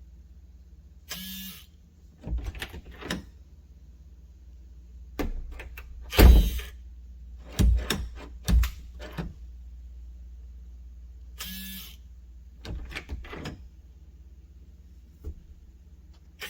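A keypad smart door lock being handled and worked: scattered clicks and thumps, loudest about six to nine seconds in, with two short whirring bursts, one about a second in and one about eleven seconds in, like the lock's motor throwing the bolt.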